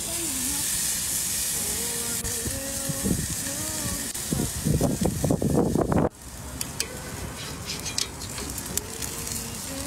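Raw steak sizzling on a hot charcoal grill grate, a steady hiss that starts the moment it is laid down; metal tongs click a few times in the second half. A song with a singing voice plays over it, loudest in the middle and cut off sharply about six seconds in.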